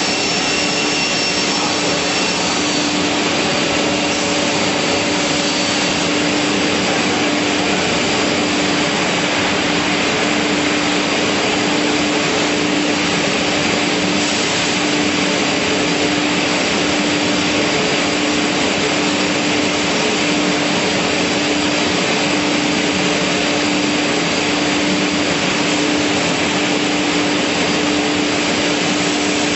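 Panel beam saw running with its dust extraction: a steady, loud whir with a constant pitched hum, like a large motor and blower under power.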